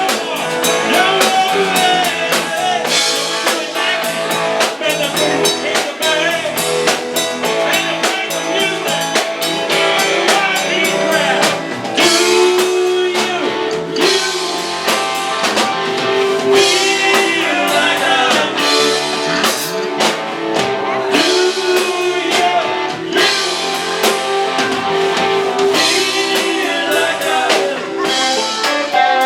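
Live rock band playing a bluesy song: electric guitar lines with bent notes over a drum kit.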